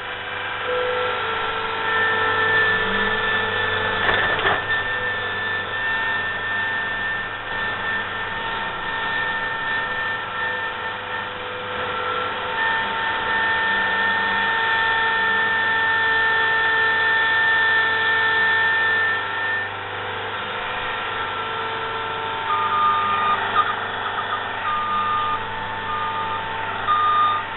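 Skid steer running as it works, a steady engine drone with a high whine over it. From a little past two-thirds of the way through, its reversing alarm beeps repeatedly.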